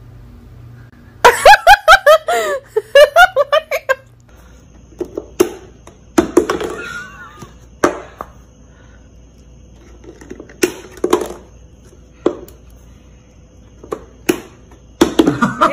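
A person laughing in a quick run of short bursts. After that comes a series of sharp taps and knocks, spaced a second or more apart, as a cat nudges a lidded plastic drink cup on a wooden table.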